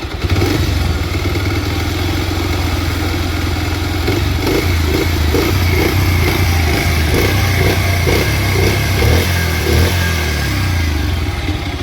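Bajaj Pulsar 125 motorcycle engine running, with a repeated 'kat-kat-kat' knocking coming from the engine, about two knocks a second through the middle stretch. It is an abnormal engine noise on a nearly new bike, its cause not yet diagnosed.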